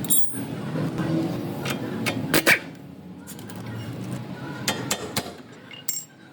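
Car engine running low, with several sharp metallic clicks and knocks, the loudest a quick double knock about two and a half seconds in; the engine sound fades away near the end.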